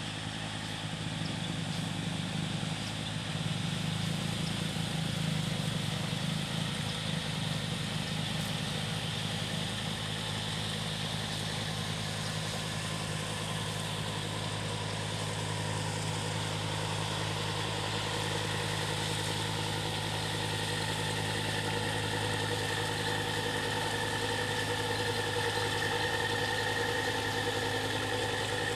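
A ship's engine running with a steady drone and a firm low hum. Higher whining tones join in over the last third.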